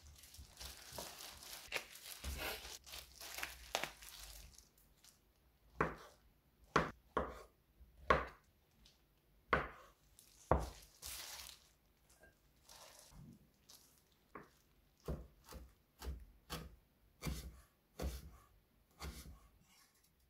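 Kitchen knife slicing a mushroom on a wooden cutting board: first a few seconds of rustling and crinkling, then separate knife strokes knocking through onto the board, roughly one a second.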